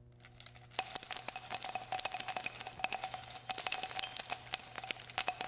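Small bells jingling rapidly and continuously, like an intro sound effect of jingle bells. The jingling starts faintly, swells to full level within the first second, and cuts off abruptly at the end.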